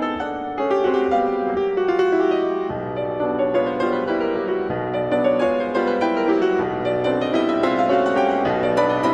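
Solo grand piano playing a waltz: a busy stream of notes over a bass that moves to a new note about every two seconds.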